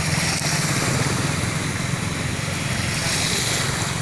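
Motorcycle engine running steadily while riding through shallow flood water, with a steady hiss over it.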